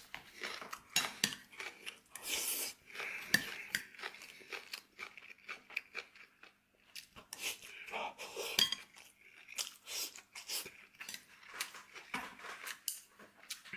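Close-up eating sounds: utensils clinking and scraping against a bowl again and again, with chewing and crunching of food in between.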